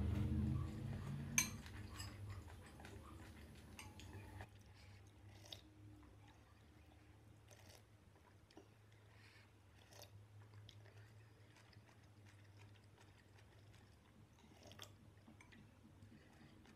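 Noodles being slurped in the first second or so, then quieter chewing of the noodles. Short clicks of metal chopsticks and spoon against a glass bowl come now and then, the sharpest about a second and a half in.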